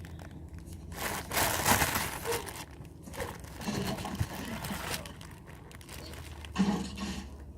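Packaging crinkling and rustling in uneven bursts as a squishy toy is handled.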